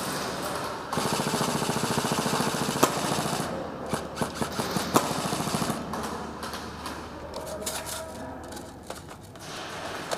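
Airsoft guns firing: a long rapid full-auto burst starting about a second in and lasting about two and a half seconds, then scattered single shots and BB hits.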